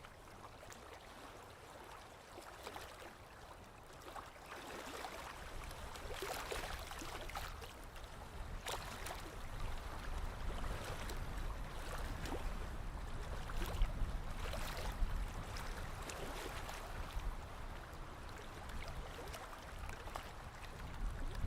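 Small lake waves lapping and splashing at the shoreline, a run of soft irregular slaps and gurgles over a low rumble that grows a little louder after the first few seconds.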